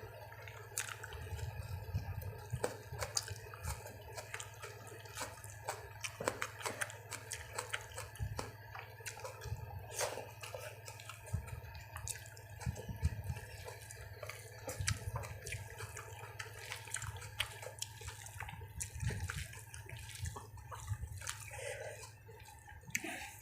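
Close-up eating sounds: wet, squishy chewing and mouth smacks as rice and curry are eaten, coming as many irregular short clicks. A steady low hum runs underneath.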